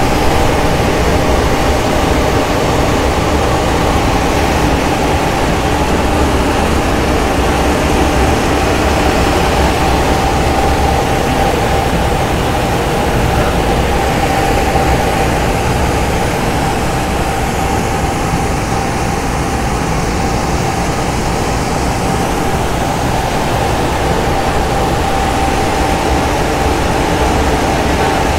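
Three-phase electric centrifugal blower fan of a mini 2-ton rice dryer running steadily during drying: a constant low hum and air rush with a steady whine.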